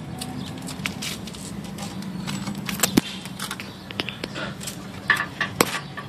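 A dog licking and nosing at a handheld camera, heard as irregular wet clicks, crackles and rubbing on the microphone, mixed with handling noise, over a faint steady low hum.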